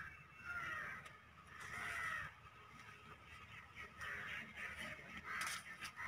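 A crow cawing, several separate caws spread over a few seconds.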